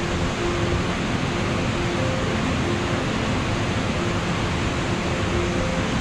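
Steady rush of a two-tier waterfall pouring into its plunge pool, a constant even wash of water noise.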